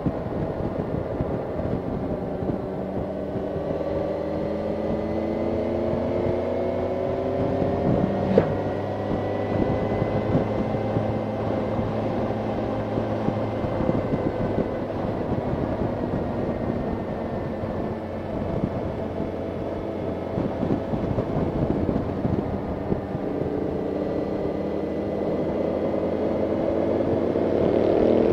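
Motorcycle engine running on the move, with wind rushing over the bike. The engine pitch rises as it accelerates about four to eight seconds in, holds steady, then climbs again near the end. A single sharp click comes about eight seconds in.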